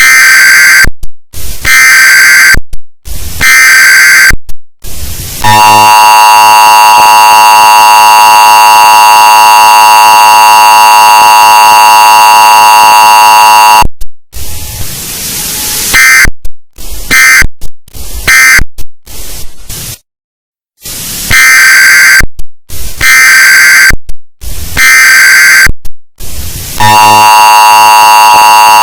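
Mock Emergency Alert System broadcast played loud and distorted. Three bursts of screeching header data tones come first, then the long steady dual-tone attention signal for about eight seconds, then a stretch of hiss and three short end-of-message bursts. After a brief silence the three header bursts and the attention tone start again near the end.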